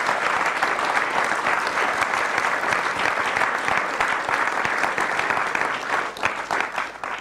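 A large audience applauding steadily, the clapping thinning out near the end.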